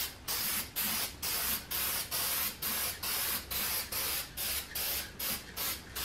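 Aerosol can of heat-resistant spray paint hissing in short, quick bursts, about two a second, as the nozzle is pressed and released in passes.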